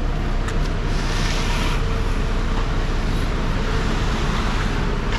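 A heavy engine runs steadily with a low hum, and a brief brighter hiss comes in about a second in.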